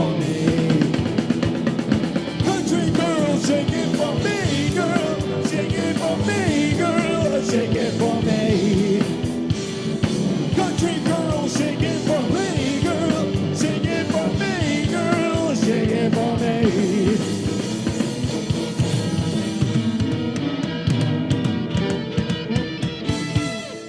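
A band playing the closing stretch of a country-rock song, with a drum kit and a melody line bending in pitch. The music cuts off right at the end.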